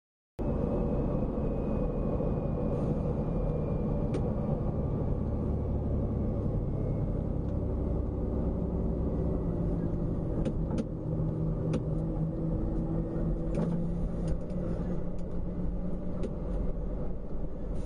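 Road vehicle driving: steady engine and tyre rumble with a low hum, starting abruptly about half a second in. A few sharp clicks or rattles break through, most of them in the second half.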